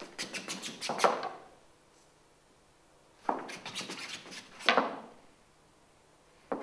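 Two bursts of quick, repeated scraping and shuffling as a prop palm tree is shuffled about on a stage floor, the first about a second long and the second around two seconds long, starting about three seconds in.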